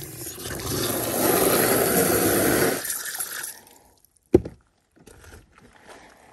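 Water running from an outdoor tap into a plastic basin, growing louder as it fills and stopping about three and a half seconds in. A single sharp knock follows a moment later.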